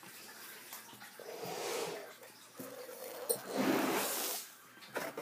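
A person blowing up a balloon by mouth: two long breaths blown into it, the second one louder.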